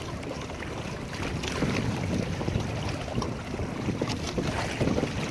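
Wind buffeting the microphone over choppy water lapping and splashing irregularly against the plastic hull and outrigger of a sailing kayak under way.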